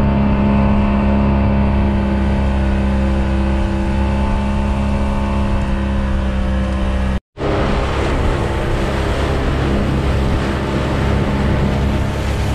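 Outboard motor of a panga running steadily at speed, a constant engine drone over water and wind noise. The sound cuts out for a moment about seven seconds in, then returns with more rushing noise over the engine.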